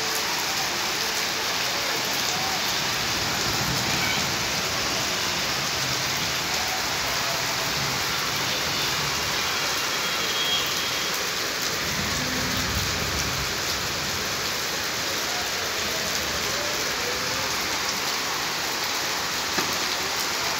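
Rain falling steadily, a dense even hiss, with a brief low rumble about twelve seconds in.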